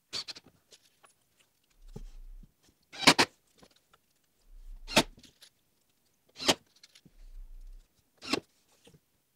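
Power drill driving screws into wooden fence boards in short bursts, five in all, each well under a second and spaced about one and a half to two seconds apart.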